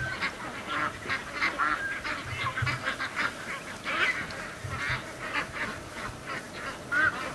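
A large flock of domestic ducks calling all at once in a continuous clamour of many overlapping quacks. The ducks are agitated, which the owner puts down to something that must have gone through the yard in the night.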